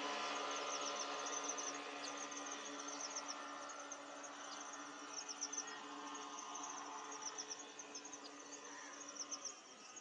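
Insects chirping in rapid, repeated high-pitched trills, over a faint low steady hum that dies away near the end.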